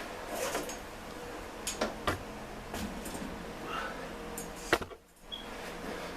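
A few sharp clicks and knocks of hand tools and metal parts being handled while parts are taken off a small motorcycle, over a faint steady hum. The sound drops out briefly just before the end.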